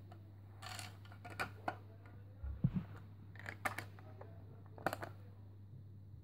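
Faint clicks and taps of plastic Lego pieces being handled and pressed onto a baseplate, with a soft thump about two and a half seconds in.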